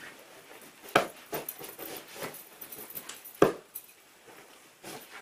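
Pillows being set and patted into place on a bed: pillowcases and bedding rustling, with two sharper soft thumps, about a second in and again past the middle.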